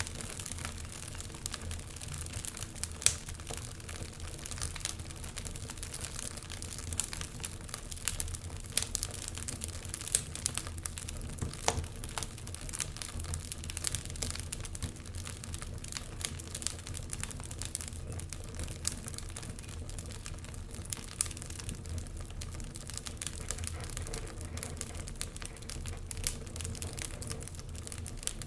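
Wood fire crackling in a fireplace: irregular sharp pops and snaps over a low steady rumble of the flames, one pop about three seconds in standing out as the loudest.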